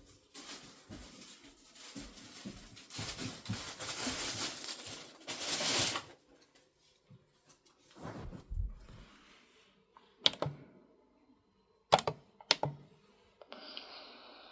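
Indoor handling noises: several seconds of rustling and clatter, then a few sharp clicks or knocks. A steady sound comes in near the end.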